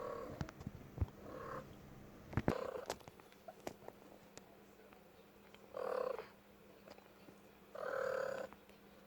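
Domestic cat giving a series of short calls, about five brief sounds spaced a second or two apart, the last two the loudest.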